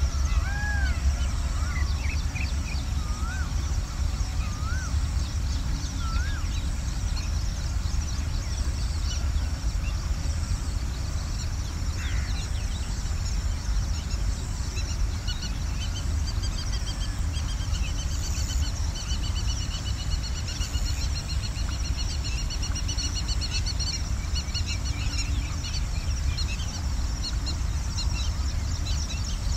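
Birds calling over a steady low rumble: a few arching calls repeated every second or so at first, then many birds chirping together from about halfway in, like a dawn chorus.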